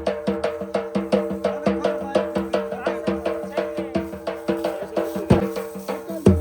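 Music: rapid, evenly spaced drum strokes over sustained instrument tones, with a heavier low drum hit near the end.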